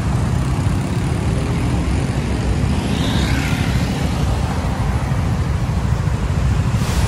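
Busy city street traffic: a steady low rumble of road vehicles, with no single vehicle standing out.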